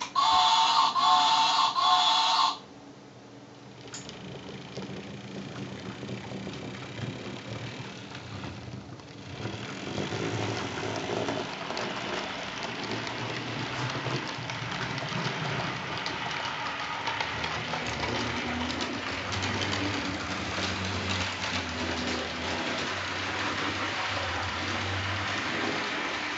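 Model class 93 steam locomotive with a freight train: a loud whistle-like tone for about two and a half seconds at the start, then the running rattle of the model's motor and wheels on the track, getting louder about ten seconds in as the train gets going. The model is being run in after long storage.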